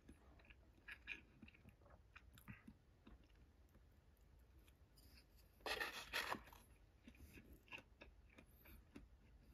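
Faint, close chewing of a mouthful of fried-tofu-wrapped sushi roll, with small clicks. A short rustle comes about six seconds in.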